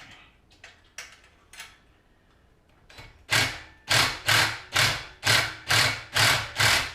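A few light metallic clicks, then from about three seconds in a steady run of loud metal tool strokes, about two a second, as the coil-spring preload on the rear suspension shock is adjusted.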